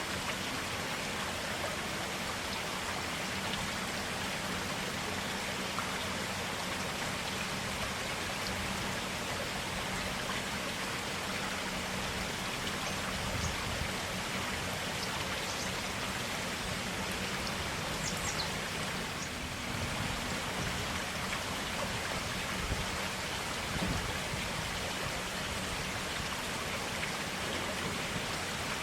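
Clear stream water running steadily over rocks, an even rushing babble.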